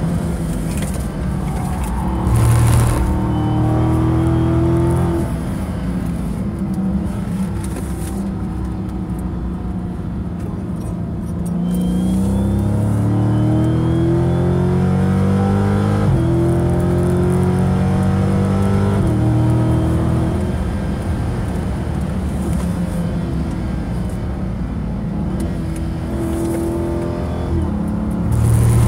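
The V8 engine of a 2015 Dodge Charger SRT 392, a 6.4-litre HEMI, heard from inside the cabin while lapping a race track. Its pitch climbs under acceleration several times and falls back between pulls, with a quieter stretch around a third of the way in.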